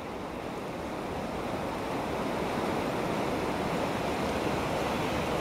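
Steady rushing of a fast-flowing river in flood, growing slowly louder.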